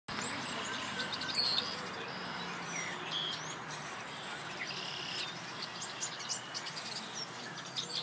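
A flock of birds calling from tall marsh grass, many short chirps and whistles overlapping in a busy chorus over a steady background hiss.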